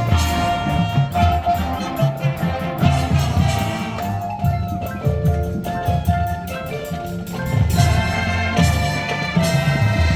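High school marching band playing its field show: brass and mallet percussion over a steady beat of drums.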